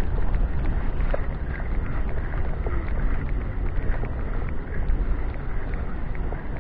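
Wind buffeting the microphone in a steady low rumble, with faint scattered clicks.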